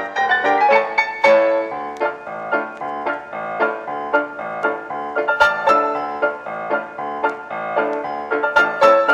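Background piano music: a run of quick melodic notes.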